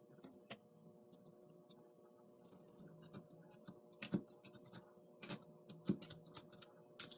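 Short scratching strokes and light clicks of a hand tool worked across foam board, sparse at first and coming more often from about halfway through.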